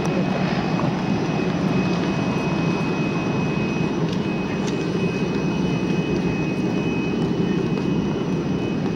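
Aircraft turbine engine running steadily: a dense rumble with a thin, high, unwavering whine above it.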